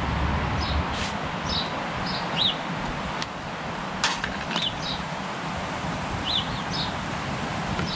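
Gusty wind blowing through a garden, heaviest in the first second, with a small bird giving short, high chirps over and over, and a few sharp clicks.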